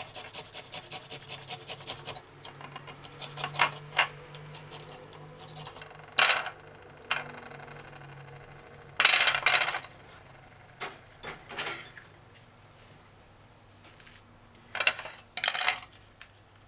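Fresh ginger being grated on a small metal hand grater over a plate: quick rasping strokes at first, then scattered scrapes with a few louder scraping bursts.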